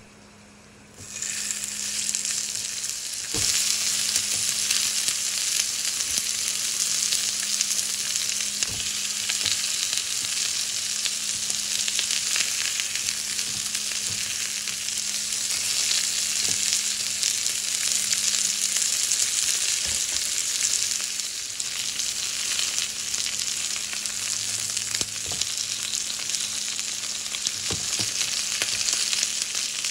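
Thin-sliced pork wrapped around kabocha squash slices sizzling in hot oil in a frying pan. The sizzle starts about a second in, grows a little louder a couple of seconds later, and then runs steadily with a few faint clicks.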